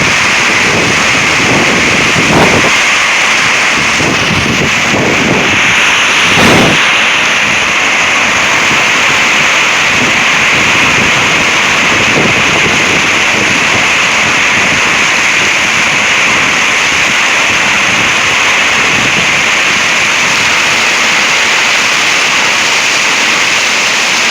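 Heavy rain and strong wind of a thunderstorm microburst: a loud, steady rushing downpour, with two brief low thumps, one about two seconds in and one about six seconds in.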